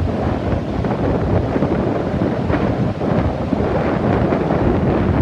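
Strong storm wind buffeting the microphone in a continuous low rumble, over the wash of rough surf on the Baltic Sea.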